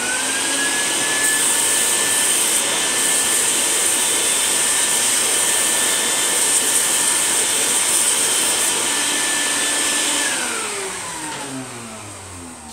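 Vacuum cleaner starting with a rising whine, then running steadily with a loud rush of air as its hose sucks up MDF dust and chips from freshly CNC-milled pockets. It is switched off about ten seconds in, and its motor whine falls as it winds down.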